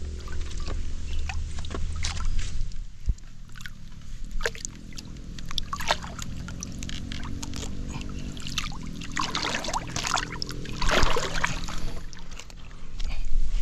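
Fish splashing at the water surface: irregular splashes and sloshing of water, heaviest a little past the middle, over a low steady hum.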